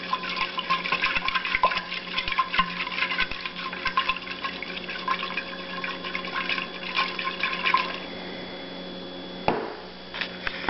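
Yeast starter wort sloshing and swirling inside a glass Erlenmeyer flask as it is shaken by hand to mix and aerate it, for about eight seconds; near the end the flask is set down on the countertop with a single knock.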